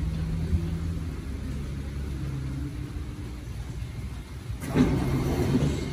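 Staten Island Railway R44 subway train humming at the station platform, a steady low drone with a couple of low steady tones. About five seconds in, a sudden louder burst of noise breaks in.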